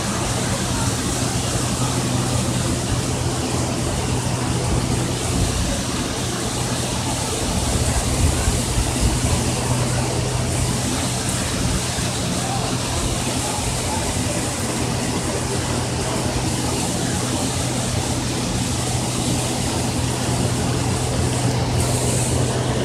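Steady rush of falling water from the memorial's granite waterfalls, with a low steady hum underneath.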